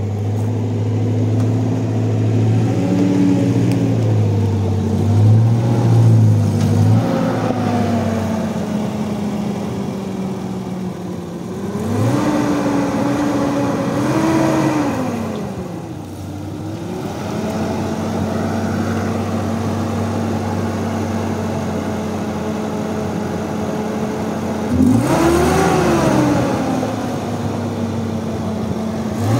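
Nissan pickup truck's engine running as it drives up over rough ground: it revs up and falls back twice around the middle, idles steadily for several seconds, then revs briefly once more near the end.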